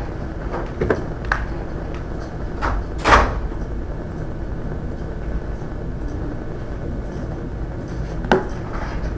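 Scattered knocks and thumps over a steady low hum, the loudest thump about three seconds in and another near the end.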